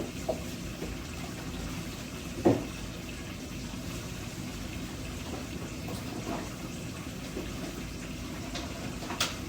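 Kitchen faucet running steadily into the sink while greens are rinsed, with one sharp knock about two and a half seconds in and a few lighter clicks.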